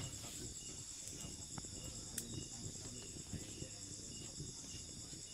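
Crickets chirping in a steady, regular rhythm of about two chirps a second over a continuous high insect drone, with faint low crackles underneath.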